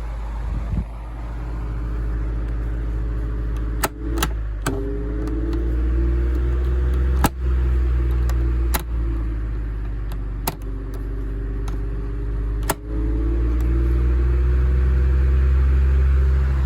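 Lasco Galaxy 16-inch oscillating table fan running with a steady motor hum, its newly replaced push-button speed switches clicked several times. The motor's hum rises in pitch after presses about four seconds in and again near the end as the speed changes.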